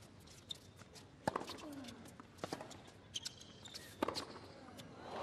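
Tennis ball bounced a few times on the hard court before a serve, then the racket striking the serve about four seconds in, over a low stadium crowd murmur.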